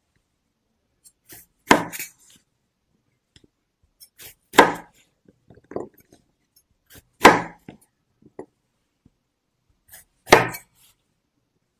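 Chef's knife slicing small green limes in half on a wooden cutting board. Each cut ends in a sharp knock of the blade on the board, four times at roughly three-second intervals, with fainter handling sounds between them.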